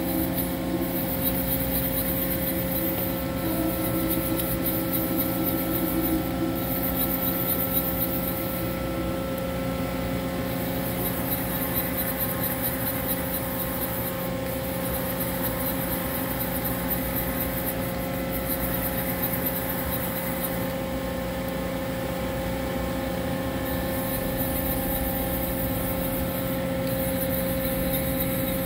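Toyoda FA 1050 horizontal machining center running with flood coolant spraying inside its enclosure. A steady machine hum with a few steady tones, under a hiss of spray that breaks off briefly every few seconds.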